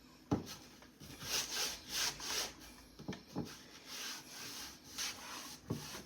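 A cloth wiping and scrubbing a kitchen cabinet surface in repeated back-and-forth strokes, with a few light knocks against the cabinet along the way.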